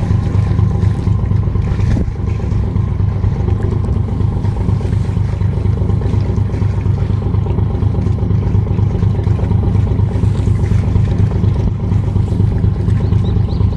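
A steady low engine hum, holding at the same level throughout, with a faint steady higher tone above it.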